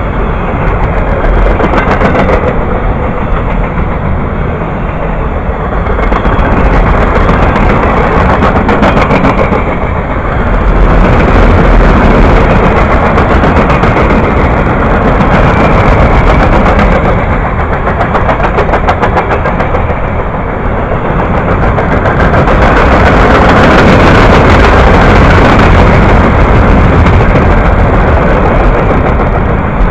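A freight train of empty flatcars rolling past close by: steel wheels on the rails make a loud, continuous rush with rapid clicking. The sound swells and eases as cars go by.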